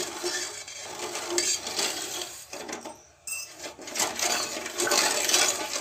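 A spatula scraping and stirring wet sugar granules around a stainless steel kadhai, with rapid scraping and clinking against the pan. It pauses briefly about three seconds in and then carries on.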